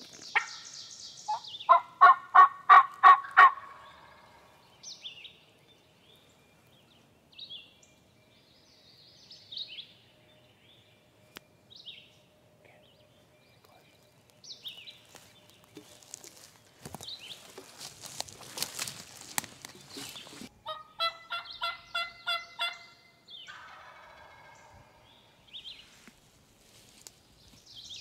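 Wild turkey gobbler gobbling: a loud, rapid rattling gobble about two seconds in, and a second, quieter gobble a little after twenty seconds.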